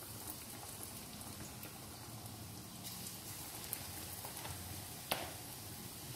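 Gram-flour pakora batter deep-frying in hot oil in an iron karahi, sizzling steadily with a fine crackle as fresh spoonfuls go in. A single sharp click about five seconds in.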